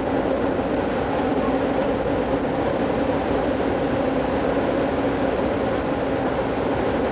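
Moving passenger train heard from inside the car: a steady rumble with an even hum.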